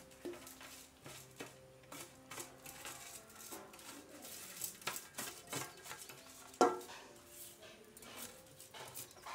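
Steel plate clinking and scraping against a stone grinding basin as urad dal and green gram grains are tipped and brushed into it. There are many small clicks and scrapes, and one louder ringing clank about two-thirds of the way through.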